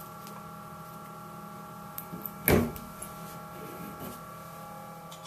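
Teflon thread-seal tape being handled and wrapped onto the threaded end of a copper pipe: faint handling with a few small clicks and one short rustle about halfway through, over a steady hum.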